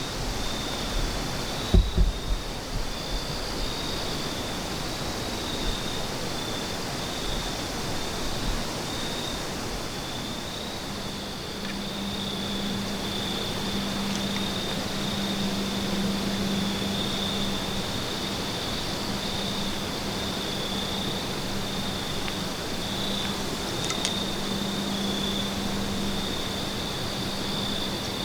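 Field insects, likely crickets, trilling steadily in a high-pitched chorus over a steady hiss. A low steady hum joins about eleven seconds in.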